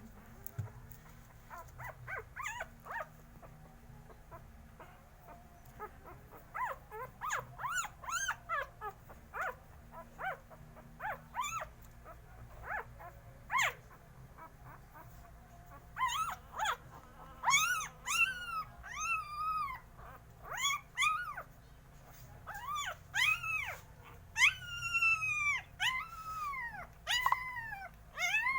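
Hungry puppies whining and yelping: many short, high-pitched cries that rise and fall, scattered at first and coming thicker and louder from a little past halfway.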